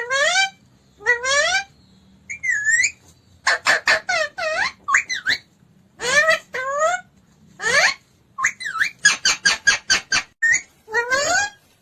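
Pet parrot calling in a string of short rising-pitched squawks, with runs of quick repeated whistle notes about four seconds in and again from about eight and a half seconds in.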